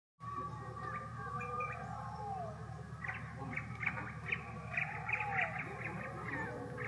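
Small birds chirping outdoors, with a cluster of quick high chirps between about three and six seconds in and two slower, lower rising-and-falling calls, over a faint steady low hum.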